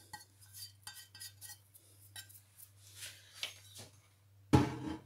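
Light clinks and taps of a cut-glass dish against a plastic mixing bowl as the last of the ground spices are shaken out. About four and a half seconds in comes a louder clatter of dishes being handled.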